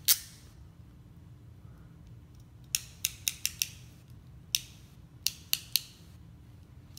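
Ratcheting crimping tool clicking as it crimps a red insulated terminal onto a wire. About ten sharp clicks come in uneven groups: one at the start, a quick run of five about three seconds in, then a few more near the end.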